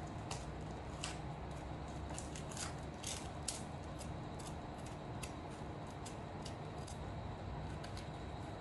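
Dry papery skin of a red onion crackling and ticking as it is peeled off with a kitchen knife, in many short, irregular clicks over a steady low hum.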